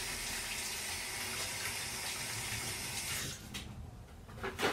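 Kitchen sink faucet running steadily while hands are washed under it, shut off about three seconds in. A few short rustles follow, the loudest near the end as a paper towel is torn off the roll.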